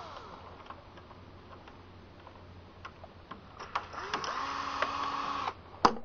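Drill backing out the screws that hold a door-lock drilling jig: a few light clicks, then the motor spins up about four seconds in, runs steadily for a second and a half and stops suddenly, followed by a single sharp knock near the end.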